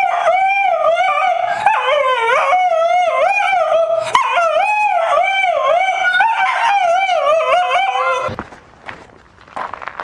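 A French bulldog howling: one long, wavering, up-and-down howl broken by two short breaths, stopping about eight seconds in.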